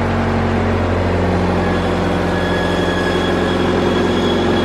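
An engine running steadily at idle, a constant low hum whose pitch shifts slightly about a second in.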